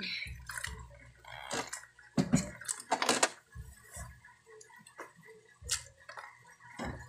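Small snails rubbed by hand in water in a plastic basket: wet shells clicking and scraping together, with water sloshing and dripping in irregular bursts. Near the end the snails are tipped into a metal pot.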